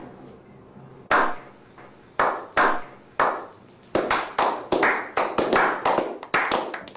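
A slow clap by a small group. Single hand claps with echoing tails come about a second apart, then speed up to about four claps a second as more people join in.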